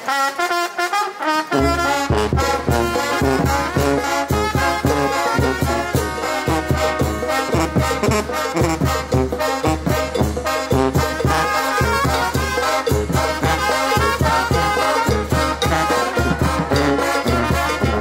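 A Mexican brass band (banda) playing a cumbia. Trumpets and trombones open, and about a second and a half in a low bass line and percussion come in with a steady dance beat.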